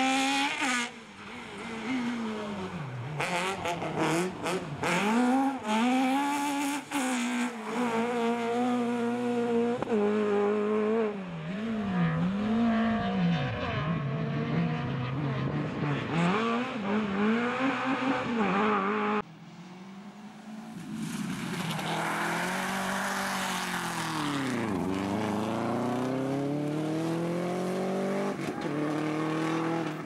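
A small rally hatchback's engine revving hard and falling back between gears through a cone slalom, with several sharp cracks a few seconds in. About two-thirds of the way in, a Subaru Impreza rally car takes over, doing a burnout: its engine is held high under a continuous tyre squeal, dipping and rising again in pitch.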